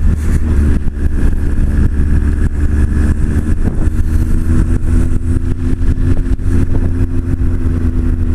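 Honda CB1300's inline-four engine running at a steady cruising speed, with wind flapping and buffeting over the camera mic.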